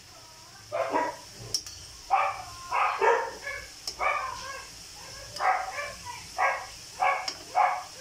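A dog barking repeatedly, about eight short barks at uneven intervals, with a few light clicks of metal tongs against the wok.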